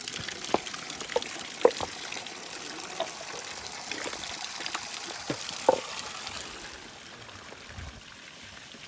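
Water trickling down a stone wall onto slate paving, with single drops splashing now and then. The trickle fades about seven seconds in.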